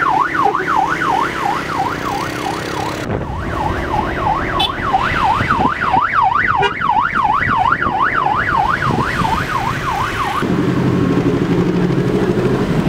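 Electronic vehicle siren sounding a fast up-and-down wail, about two sweeps a second. It breaks off briefly about three seconds in and cuts off about ten seconds in, leaving a lower steady hum.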